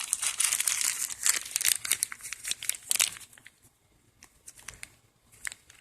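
Packaging crinkling and rustling as a package is opened by hand: dense crackling for about three seconds, then a few scattered crackles.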